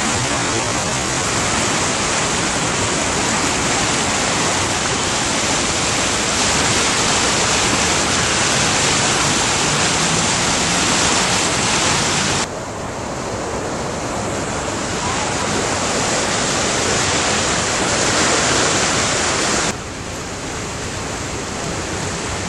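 A river in flood, overflowing its banks: a steady, loud rush of fast floodwater. The level drops suddenly twice, about twelve and twenty seconds in.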